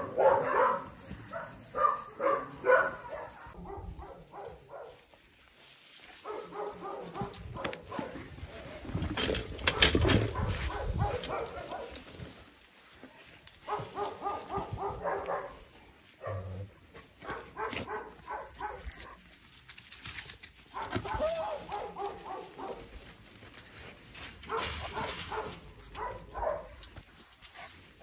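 Shelter dogs barking in repeated bursts of short barks. A couple of seconds of rustling noise come about ten seconds in.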